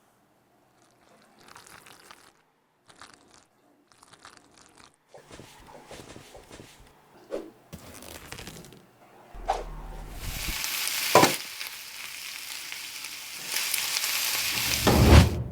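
Short scraping and rustling handling sounds, then, about ten seconds in, king mackerel frying in hot oil with a loud, steady sizzle and a couple of sharp knocks. The sizzle grows louder near the end and cuts off suddenly.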